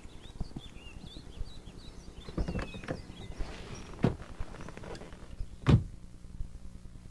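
Faint birds chirping, then a few footsteps and knocks, and a car door shutting with a thump about three-quarters of the way through.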